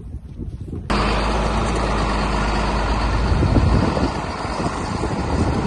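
John Deere tractor's diesel engine running close by, cutting in abruptly about a second in with a loud, steady low hum that grows rougher after a couple of seconds.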